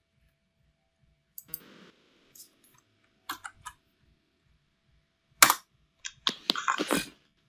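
Computer mouse clicks and keyboard keystrokes in short scattered groups: a sharp click about five and a half seconds in, then a quick run of keystrokes.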